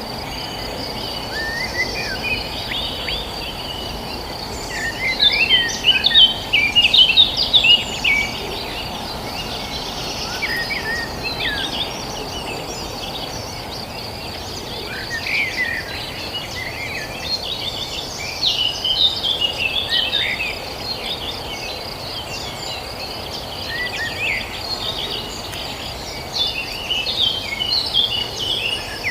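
Several small birds chirping and twittering in quick bursts, busiest a few seconds in and again near the middle and the end, over a steady high insect drone like crickets and a constant low background hiss.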